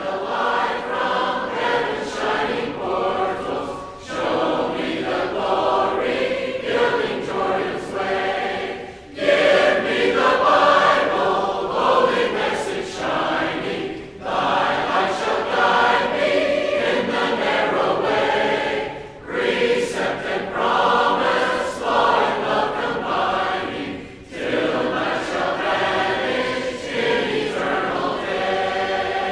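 Church congregation singing a hymn a cappella, the voices together in phrases of about five seconds with short breaks between them.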